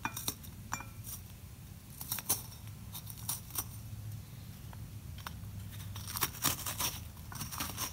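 Kitchen handling noises: scattered light clicks, clinks and crinkles throughout, over a low steady hum.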